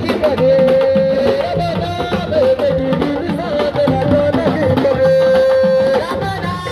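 Sabar drums played in a dense, fast rhythm, with a gliding sung melody line over them that holds a long note about half a second in and again near the five-second mark.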